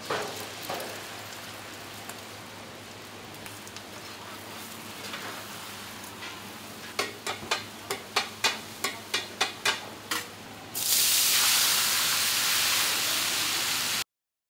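Beaten egg sizzling in hot oil in a deep griddle pan, then a metal spatula scraping and tapping against the pan about three times a second. Near the end a much louder steady sizzling hiss starts and then cuts off suddenly.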